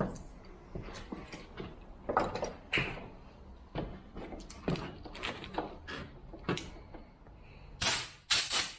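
Scattered light knocks and clicks of plastic saw parts being handled. Near the end come two short, loud blasts, compressed air from a blow gun cleaning out a dusty chainsaw air filter.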